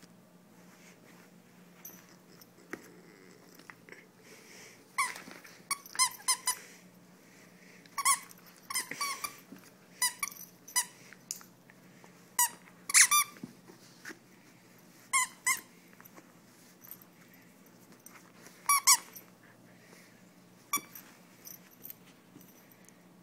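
Squeaker inside a plush dog toy squeaking in short, sharp bursts as a German Shepherd puppy bites and chews it, often two or three squeaks in quick succession with pauses of a second or more between.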